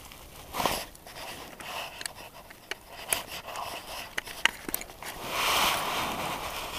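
Close handling noise: clothing rubbing over the camera, with scattered small clicks and scrapes as a fishing rod and jaw jacker are handled over the ice hole. A longer rushing rub comes about five seconds in.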